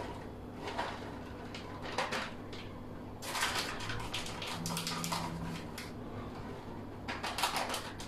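A seasoning sachet rustling in a series of short bursts as it is shaken and handled over a parchment-lined baking tray.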